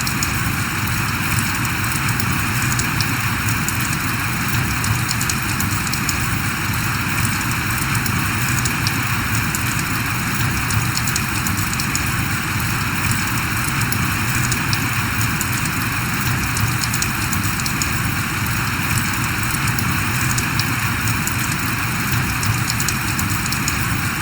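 Steady rain falling, an even patter of many fine drops with a constant low rumble beneath.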